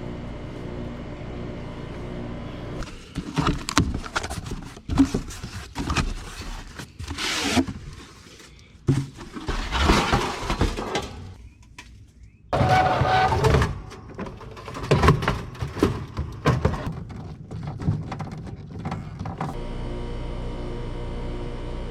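Irregular knocks, clicks and clatter of tool and panel work, from hands-on work on an HVAC package unit. Steady background music comes in for the last couple of seconds.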